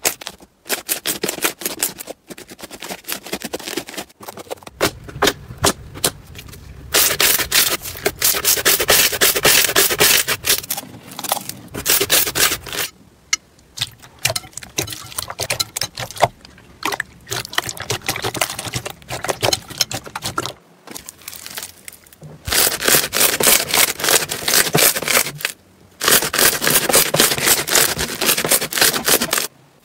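Hands squeezing, kneading and stretching slime: dense, rapid wet clicking and crackling as air pockets pop, with some rubbing and squishing. The sound changes abruptly several times as one slime clip cuts to the next.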